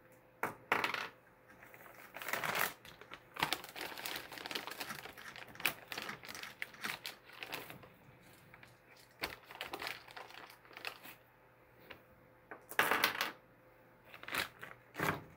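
Small metal nuts and washers clicking and clinking as they are picked over and handled, with a clear plastic hardware bag crinkling in several short bursts, loudest near the end.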